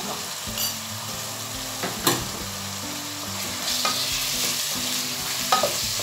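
Diced onion and small chicken pieces sizzling in oil and butter in a saucepan while a wooden spoon stirs them. Two sharp knocks come about two seconds in and again near the end.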